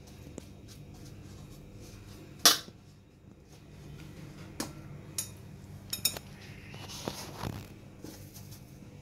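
Hands working a rava-and-masala coating onto fish slices in a steel plate. Scattered sharp clinks against the steel, the loudest about two and a half seconds in, with softer rubbing and scraping between them.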